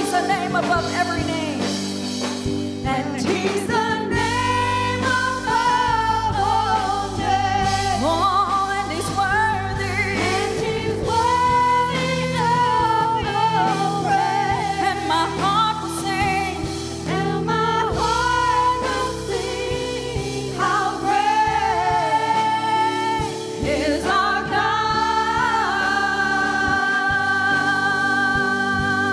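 Gospel worship music: a solo singer's melody over sustained keyboard chords and a bass line, ending on a long held note.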